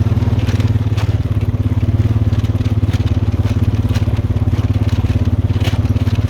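ATV engine running steadily at low speed with an even, fast low-pitched pulse, over scattered knocks and rattles from rolling across rough, rocky ground.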